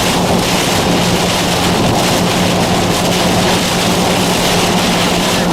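Heavy thunderstorm rain and wind, a loud steady rush, with a steady low hum underneath.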